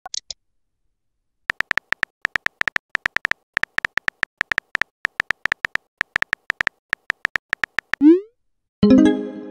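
Phone keyboard typing clicks, a quick run of taps at about six a second for some six seconds as a message is typed, then near the end a short rising swoop and a brief chime: the messaging app's send sound.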